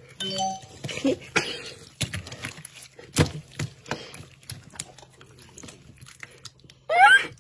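Hands kneading and pressing glossy black slime, giving a run of small wet clicks and pops. A short rising voice-like sound, the loudest thing here, comes near the end.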